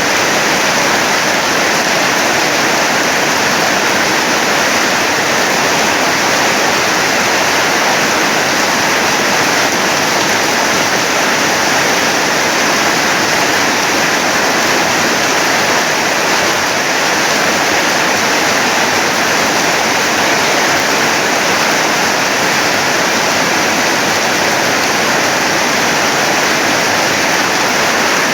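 Heavy rain pouring down in a storm, a loud, steady rush of water with no letup.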